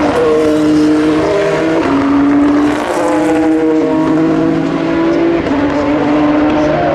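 Open-wheel single-seater race cars running at high revs, several engines heard at once, their pitch holding and then stepping down a few times as they shift or pass.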